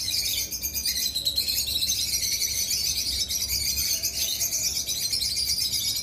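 A flock of lovebirds chattering: many high chirps overlapping without a break.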